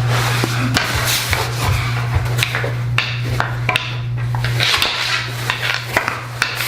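Mini hockey sticks knocking and scraping on a ball and the floor during a game of mini sticks: irregular sharp clacks and scrapes, over a steady low hum.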